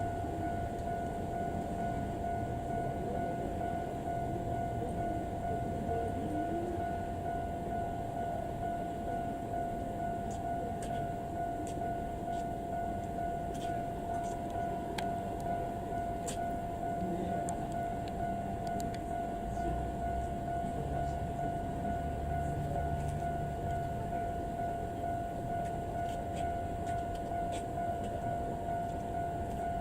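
A level crossing warning alarm sounding as one steady high tone throughout, over the low rumble of a JNR Class DE10 diesel-hydraulic locomotive's engine; a few light clanks around the middle.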